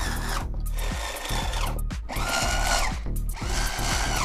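Electric drill run in short trigger bursts, about one a second: the motor spins up, holds, then winds down between each. Background music plays under it.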